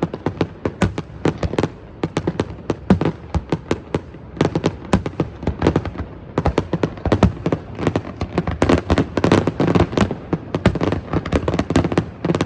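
Fireworks display: a rapid, continuous volley of sharp bangs and crackles as many shells burst in quick succession, easing off briefly around four to six seconds in, then growing denser again.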